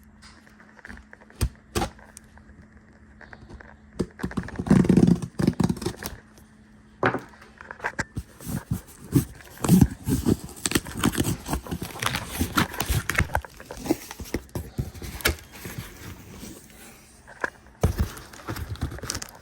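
Cardboard product box and its packaging being opened by hand: tearing, crinkling and scraping with scattered clicks and thunks, sparse at first and busier from about four seconds in.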